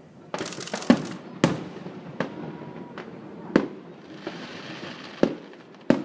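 Aerial fireworks bursting: about six sharp bangs at uneven intervals, each trailing off in an echo. Dense crackling runs between about half a second and a second and a half in.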